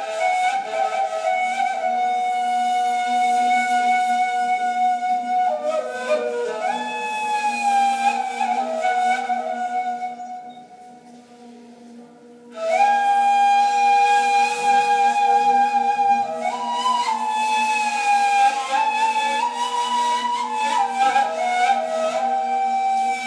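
Two neys, the Ottoman end-blown reed flutes, improvising together in long, breathy held notes that step and slide between pitches, over a low note held steady beneath. About ten seconds in, the melody breaks off for two seconds and then comes back on a long held note.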